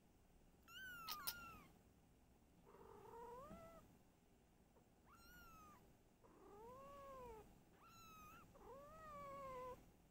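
A white longhaired kitten mewing in about five thin, high calls that slide down in pitch, answered twice by lower, longer, arching meows from its mother cat.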